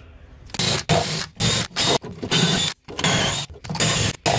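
Cordless drill spinning a wire-wheel brush against a rusty fuel-line fitting on the fuel tank to scrub off rust and dirt, run in a series of short trigger bursts with brief pauses between them.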